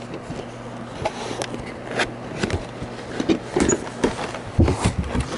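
Plastic model kit's cardboard box being opened and its contents handled: irregular rustling, scrapes and small knocks, over a steady low hum.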